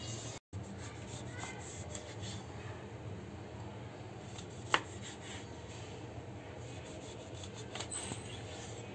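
Kitchen knife slicing through limes on a wooden chopping board, with one sharp knock of the blade on the board about five seconds in, over a steady low hum.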